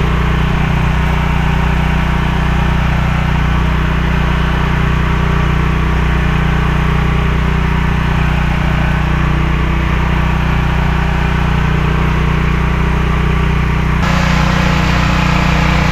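An engine on board a fishing boat running steadily, a low droning hum with no change in speed.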